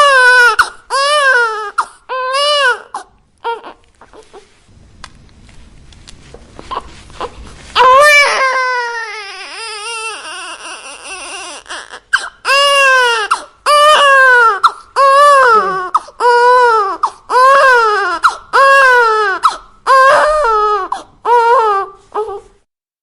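Newborn baby crying in a run of short wails, each rising then falling in pitch, about one a second. A few seconds in it goes quiet for a stretch, then comes one long wavering cry. The rhythmic wails resume and cut off suddenly near the end.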